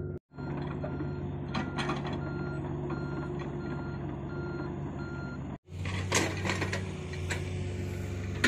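Komatsu PC45 mini excavator's diesel engine running steadily, with its warning alarm beeping at an even pace, a little under twice a second. About five and a half seconds in the beeping stops at a short cut, and a steady engine drone carries on with a few clicks.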